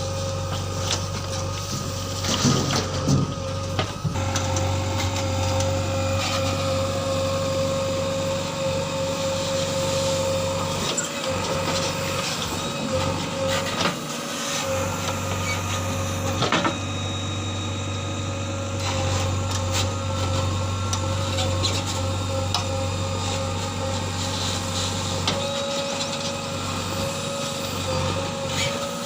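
JCB 3DX backhoe loader's diesel engine running steadily under working load, with a steady whine over it and occasional knocks and scrapes, the loudest a few seconds in and again about halfway through.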